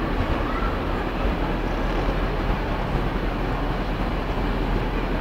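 Steady, echoing din of a busy railway station hall: indistinct crowd noise and hall rumble, with no single sound standing out.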